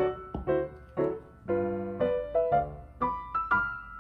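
Background piano music: a gentle melody of single notes and chords, each note struck and left to fade.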